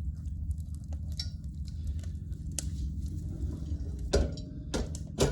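Wood fire crackling in a tent wood stove: scattered faint pops and ticks over a steady low rumble, with a few sharper cracks near the end.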